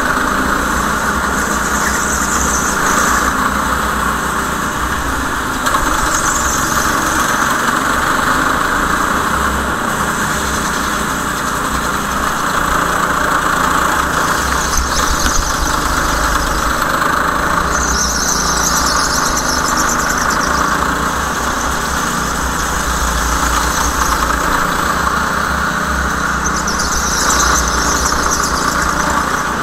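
Racing go-kart engine running steadily, with tyres squealing in short spells several times as the karts corner.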